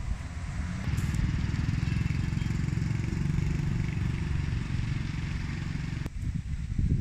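A motor engine running steadily with a low, rapid, even pulse. It starts about a second in and cuts off sharply about six seconds in.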